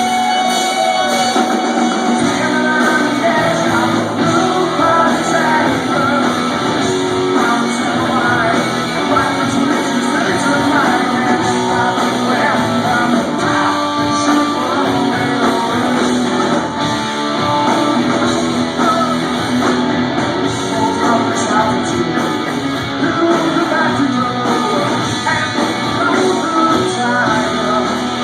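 Live rock band playing loudly, with guitar and a singing voice.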